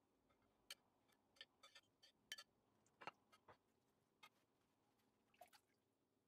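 Near silence, broken by a dozen or so faint, short clicks and soft wet squishes from crumpling soaked yufka pastry sheets into a pan and dabbing them with sauce from a silicone pastry brush.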